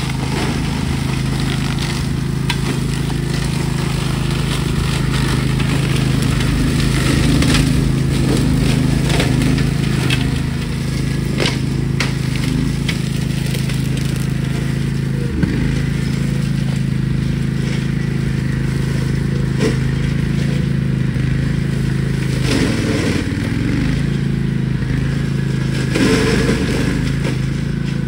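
Rabbit RM983X ride-on mower's engine running steadily under load as it cuts through shrubs and undergrowth, with repeated cracking and snapping of stems and branches. The engine note dips briefly about two-thirds of the way through as it bites into heavier brush.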